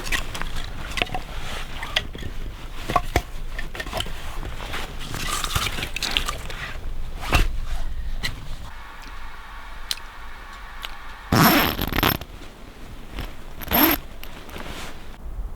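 A zipper pulled twice, two short rasping strokes about two seconds apart in the second half, after a stretch of small clicks and knocks.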